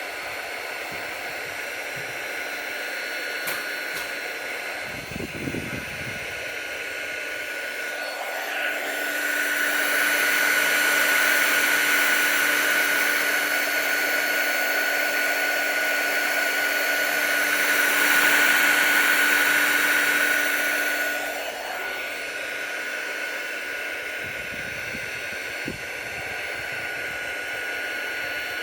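Electric heat gun blowing hot air steadily with a whine, used to shrink glue-lined heat-shrink tubing. It grows louder for about twelve seconds in the middle, then drops back.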